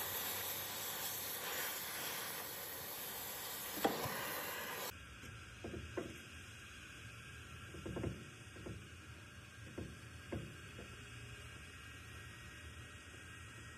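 Oxy-fuel torch jet hissing steadily as its flame works on the steel boss of an excavator boom link. It breaks off abruptly at about five seconds. A handful of short metal knocks follow as a steel pin is worked into the link's bore.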